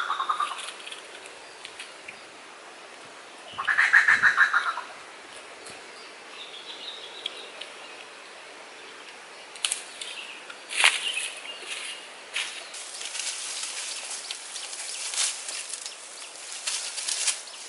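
A bird's buzzy, rapidly pulsed call, about a second long, at the start and again about four seconds in. From about ten seconds in, footsteps crunch and crackle through dry leaves and bamboo litter, with a sharp snap of a twig near eleven seconds.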